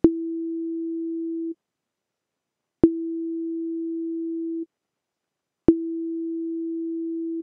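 Ableton Operator synthesizer playing one pure sine-wave note three times from a keyboard. Each note opens with a loud click and beep that decays at once to a steady, quieter sustained tone held while the key is down, then stops almost instantly on release (short decay, mid sustain, short release envelope).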